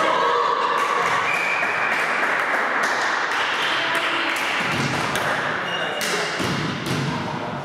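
Volleyball rally noise echoing in a sports hall: players shouting and calling over one another, with the ball being struck and the sharp taps of shoes on the court.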